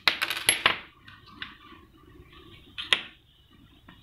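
Small plastic and metal parts clicking and clattering as an opened door/window sensor, its coin-cell battery and a small screwdriver are handled on a table: a quick run of clicks over the first second, then one sharp click near three seconds.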